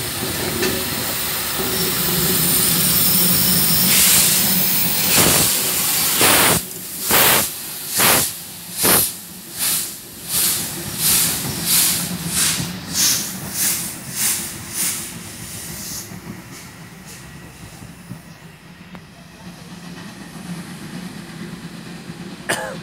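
Narrow-gauge steam locomotive hissing steam from around its cylinders, then pulling away with exhaust chuffs. The chuffs start about one a second, quicken to nearly two a second, and fade as it moves off.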